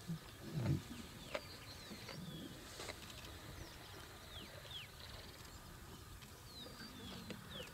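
Lionesses feeding on a buffalo carcass: a brief low growl about half a second in, then scattered sharp clicks of tearing and chewing. Small birds chirp in quick falling notes through the second half.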